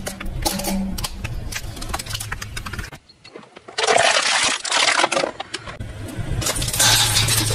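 A car's tyres rolling over and crushing objects, with crackling and snapping, over the car's engine running. The sound changes abruptly about three seconds in. Louder bursts of crunching noise follow, about four and seven seconds in.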